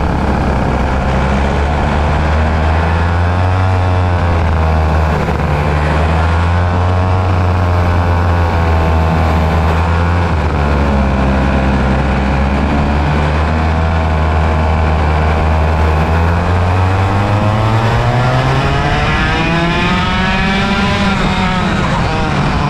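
A pack of 100cc two-stroke kart engines at low speed: the onboard kart's engine runs at a steady low note while the surrounding karts rev up and down. About seventeen seconds in, its pitch climbs as it accelerates.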